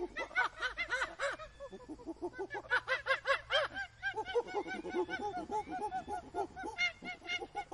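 Rapid cackling, laugh-like calls, several short squeaky notes a second, with a short break about two seconds in.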